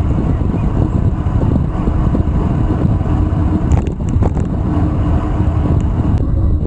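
Wind buffeting the microphone of a moving bicycle, a steady low rumble, with a few sharp clicks about four seconds in.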